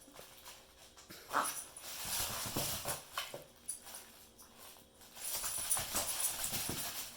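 A reindeer making its odd noise: two long, noisy calls, the first starting about a second in and the second about five seconds in.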